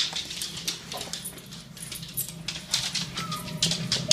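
Rustling and clicking from movement and handling close to the recording phone, with a short faint whine about three seconds in.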